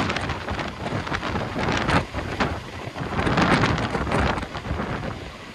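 Wind buffeting the microphone in gusts, over the noise of a Kamov Ka-32A coaxial-rotor helicopter hovering overhead with a slung load.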